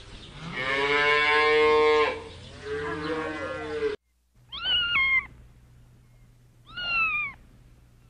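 A cow mooing, one long moo and then a shorter one, followed about four seconds in by a domestic cat meowing twice, short falling meows about two seconds apart.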